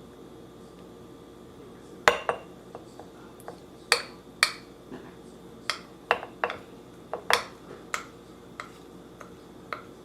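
Irregular clinks and knocks against a glass jar, a dozen or so sharp taps at uneven intervals, the loudest about two, four and seven seconds in. It is the sound of thick honey, partly set from the cold, being worked into a jar of crushed ginger.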